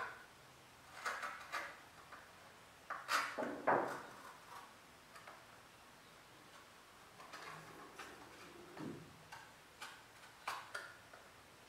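Razor blade cutting a window into an empty milk carton, a scatter of small clicks and scrapes as the blade goes into the carton and the carton is turned in the hands.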